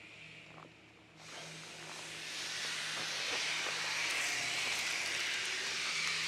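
A steady hiss that starts suddenly about a second in and grows gradually louder, over a faint low hum.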